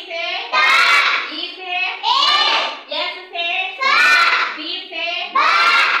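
Children's voices chanting words aloud in a sing-song rhythm, each word drawn out with rising and falling pitch, as in a class reciting after the teacher.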